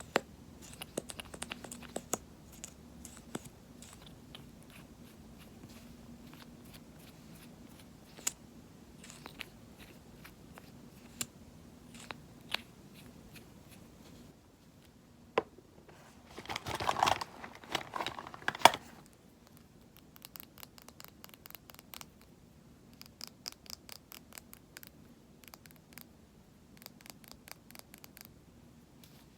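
Cosmetic containers and tools handled close to the microphone: scattered light clicks and taps, a louder rustling scrape a little past the middle, then a quick run of light tapping and scratching near the end.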